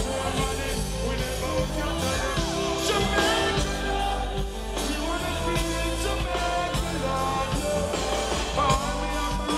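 Live reggae band music with a man singing over a steady bass line.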